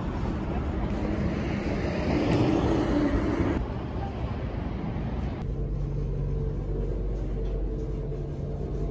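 City street ambience: steady traffic noise from passing road vehicles, cut into a few short clips, the last few seconds a steadier low hum.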